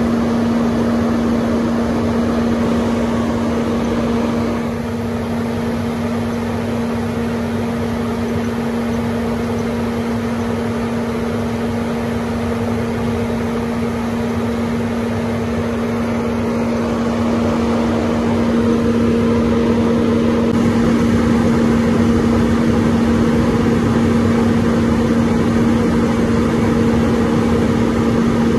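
Hinode-type flat grain dryer's burner and blower running lit: a steady hum with a strong low tone over an even rushing noise, getting a little louder about 18 seconds in.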